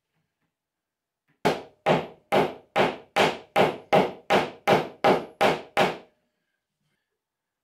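Wooden mallet tapping a door stile down onto its glued panel to seat the joint: twelve even blows, about two and a half a second, starting about a second and a half in and stopping about six seconds in.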